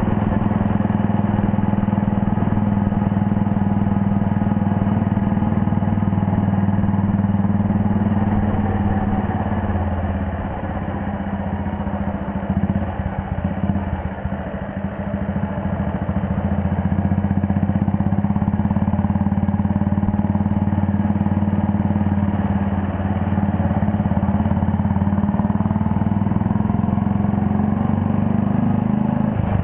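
1939 Red Panther Model 40's 250 cc single-cylinder engine running steadily on the move, easing off for a few seconds about halfway through, then picking up again.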